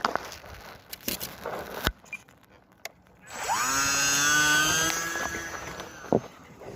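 Electric motor and propeller of an E-flite UMX Timber model plane spinning up with a rising whine about three seconds in, holding steady at high throttle, then fading. A few sharp clicks come before it.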